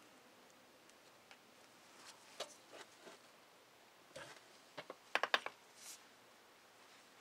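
Light, scattered clicks and taps of hands handling small metal parts on an opened hydrostatic transmission, with a quick run of sharper clicks about five seconds in.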